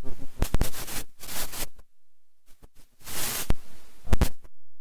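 Scattered rustling and light knocks picked up by desk microphones, with a short burst of hissing rustle about three seconds in and a few sharp clicks a second later.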